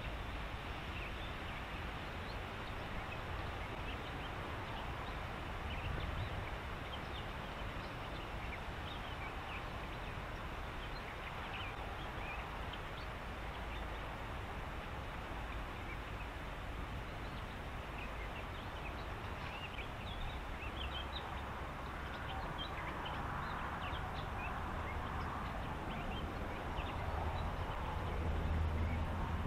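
A dense, steady chorus of many short wildlife calls from a reed bed, with duck-like quacking among them, over a low rumble.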